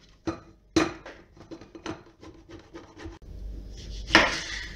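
Orange zest being grated on a metal box grater: a run of short rasping strokes, about two or three a second. Near the end, a knife cuts through the orange with one loud knock onto a wooden cutting board.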